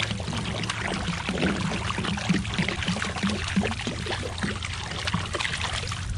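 Water being poured steadily from a container, splashing and gurgling as it lands.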